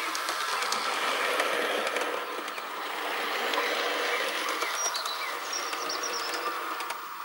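Hornby OO gauge model of an LMS Stanier Class 4P 2-6-4T tank locomotive running along the layout track: a steady motor whir with faint scattered clicks from the wheels on the rails.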